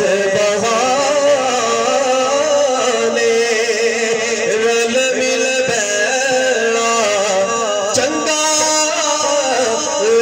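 A man's voice singing a naat (devotional Punjabi song praising the Prophet) into a microphone and through a loudspeaker, in long wavering melismatic notes without a break.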